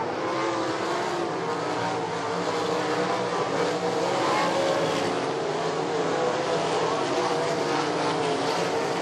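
Several sprint car engines running hard around the track, their pitch rising and falling together as the cars lap.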